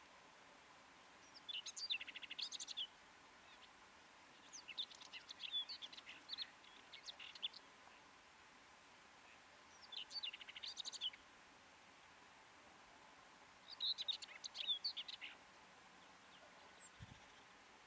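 Common whitethroat (Sylvia communis) singing: four short, fast song phrases a few seconds apart, the second one longer.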